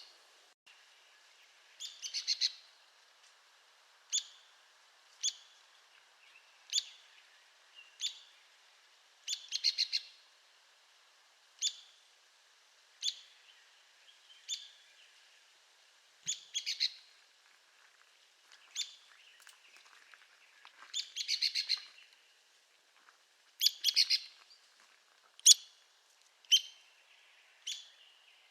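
Arizona woodpecker calling: sharp, high single call notes about every one to one and a half seconds, with a few short rattling series of quick notes in between.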